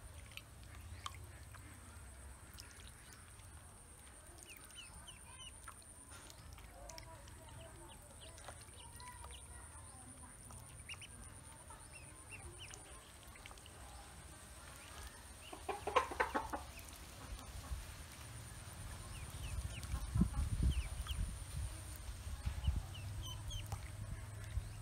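Domestic ducklings peeping now and then in short high chirps, over a steady high hiss. About sixteen seconds in comes a short run of clucking, and low rumbling follows near the end.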